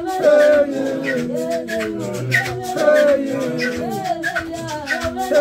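A group of men singing together, several voices in close harmony, over a sharp percussive beat about twice a second, rattle-like, from shakers, claps or stamping.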